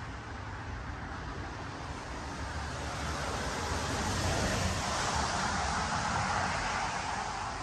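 Steady rushing outdoor noise that swells about three seconds in and eases off near the end.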